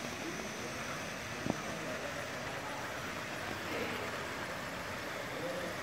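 Steady hubbub of a busy exhibition hall: a constant hiss with faint, indistinct voices. There is one sharp click about a second and a half in.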